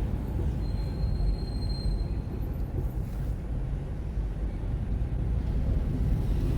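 A car driving steadily, with a low, even road and engine rumble. A faint, thin high tone sounds briefly about a second in.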